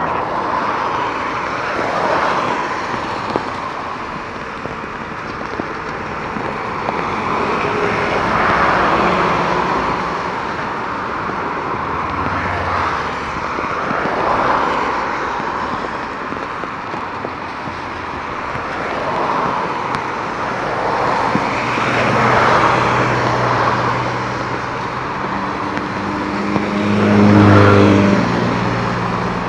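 Jet airliner engines heard through torrential rain: a steady rushing noise that swells and eases every few seconds. Near the end a low engine hum grows louder as an Airbus A320-family jet taxis close.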